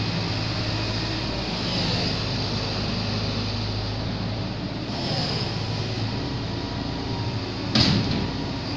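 Hitachi amphibious excavator's diesel engine running steadily as the machine swings its upper structure and moves its boom. A sudden louder burst of noise comes near the end.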